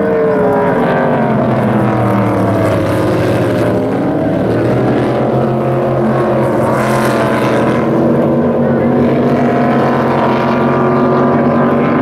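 Two unblown (naturally aspirated) flatbottom inboard race boats running flat out at racing speed. Their engine notes are steady and loud, and the pitch slides down near the start and bends up and down as the boats pass and turn.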